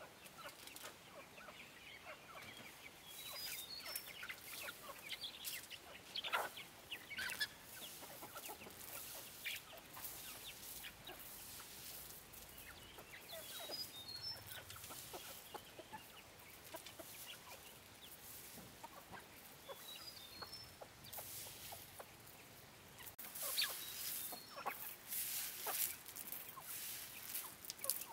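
Chickens clucking, with a few short high chirps and scattered light rustles and taps, busiest near the end.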